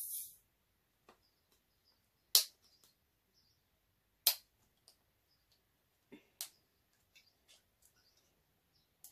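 Sharp clicks and taps on an opened aluminium drink can as it is handled, the two loudest about two and four seconds in, after the can's fizzing hiss dies away at the very start.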